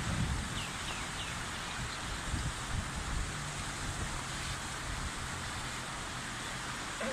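Steady outdoor background noise with a low rumble, and a few short, high, falling chirps about a second in.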